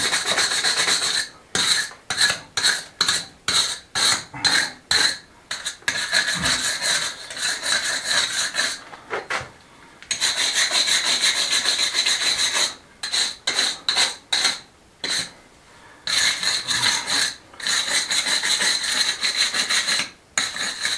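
A hand brush scrubbing a wet stone wall, working softened old mortar and grime off the stones. It starts as a run of short, quick back-and-forth strokes, then goes on in longer spells of steady scrubbing with brief pauses between them.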